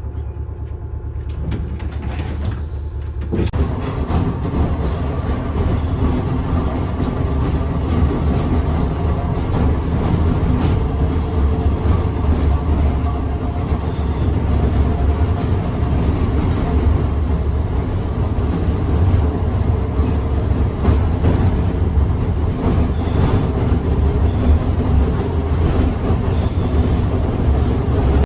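Electric Milan streetcar running along the track: a steady low rumble of wheels on rails that grows louder about three seconds in as the car picks up.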